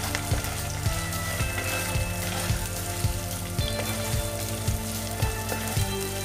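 Freshly added sliced onions sizzling in hot oil and ginger-garlic paste in a karahi, stirred with a wooden spatula.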